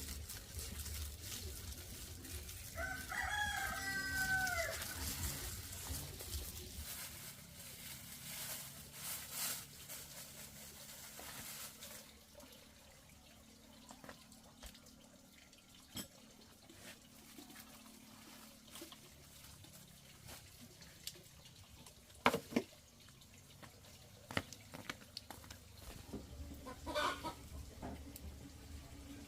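A rooster crows once, about three seconds in. Later come scattered sharp knocks and clicks.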